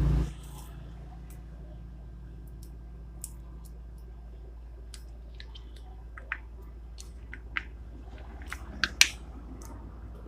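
Scattered sharp ticks and clicks over a steady low hum, as vegetables are handled and added to a nabe hot pot heating on its burner, before it comes to the boil. The loudest clicks come in a quick cluster about nine seconds in.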